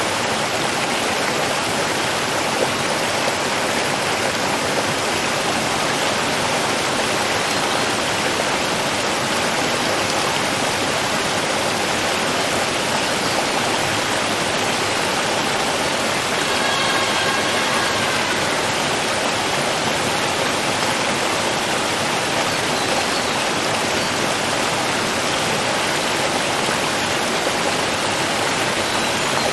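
Running water rushing steadily, an even, unbroken wash of sound. About two-thirds of the way through, a faint, brief pitched call sounds over it.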